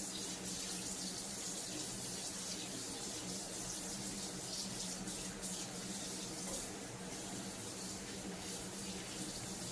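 Steady rushing hiss with a low, even hum underneath, unchanging throughout, like a fan or motor running.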